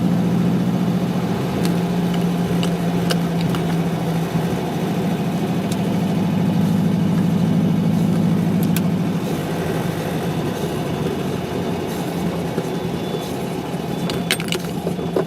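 VW Beetle 1600's air-cooled flat-four engine running while the car is driven, heard from inside the cabin as a steady low drone that eases off about nine seconds in. A few light clicks near the end.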